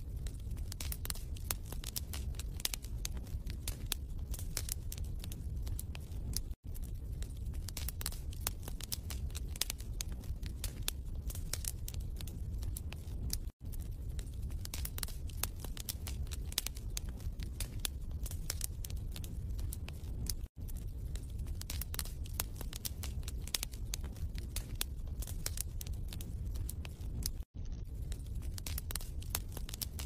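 Wood fire crackling in a fireplace: a dense run of sharp crackles and pops over a steady low rumble. It is broken by a brief silent dropout about every seven seconds, where a looped recording restarts.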